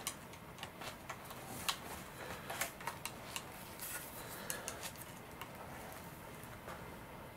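Faint scattered clicks and taps of a small servo and its wooden servo tray being handled and pushed into place inside a model glider's tail boom. The clicks come thickest in the first few seconds, thin out after, and are sharpest about one and a half and two and a half seconds in.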